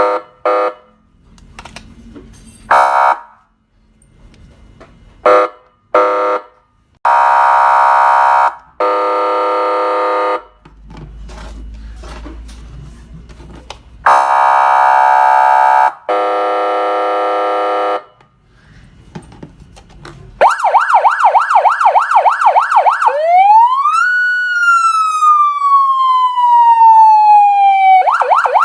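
CJB 620 B electronic siren through its horn speaker, tested tone by tone. First come short horn blasts, then two long steady horn tones, then from about 20 s a fast yelp warble that turns into a wail rising quickly and falling slowly, with the yelp starting again near the end.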